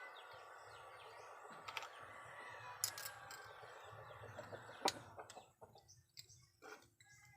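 Faint background of chickens clucking and small birds chirping, with a faint steady hum and a few sharp clicks; it grows quieter about five seconds in.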